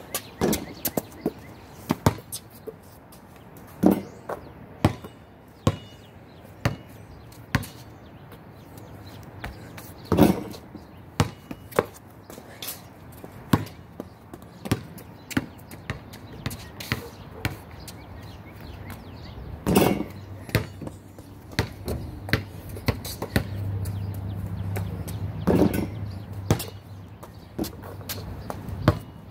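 Basketball bouncing on hard ground in sharp thuds at irregular intervals, roughly one a second, with a few louder bangs of the ball hitting the backboard and rim.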